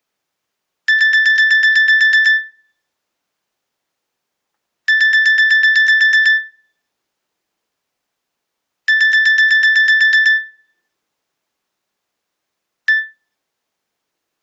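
Nokia E63 phone ringtone: rapid electronic beeping at one high pitch, about nine beeps a second in bursts of about a second and a half. The bursts come three times, about four seconds apart, and a single short beep follows near the end.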